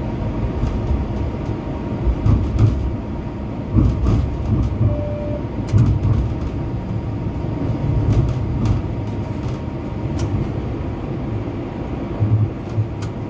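Cabin of a moving Bombardier Flexity Outlook low-floor streetcar: a steady low rumble of wheels on rail, with scattered clicks and knocks from the track and car body.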